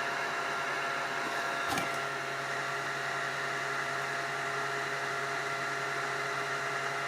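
Small fan running steadily with a whir and a faint whine, with one brief click about two seconds in.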